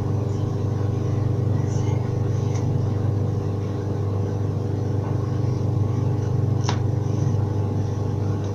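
A steady low mechanical hum, with one sharp click about two-thirds of the way through.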